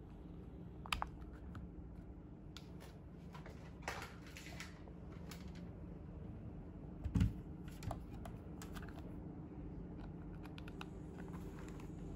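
Scattered light clicks and taps over a faint steady hum, with a louder knock about seven seconds in.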